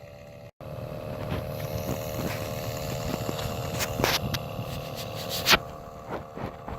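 Car cabin heater blower fan running with a steady hum, with a few sharp clicks and knocks from handling partway through.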